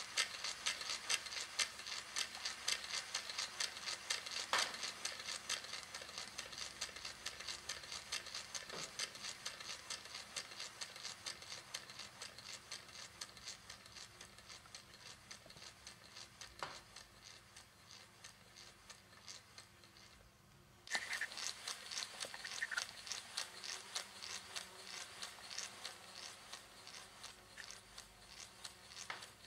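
Model three-cylinder compressed-air radial engine running, a rapid, even train of air puffs and light mechanical clatter. It grows gradually quieter, then suddenly louder again nearly three-quarters of the way through.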